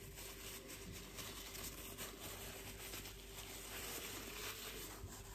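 Faint close-up eating sounds: quiet chewing with soft crackles, over a steady faint hum.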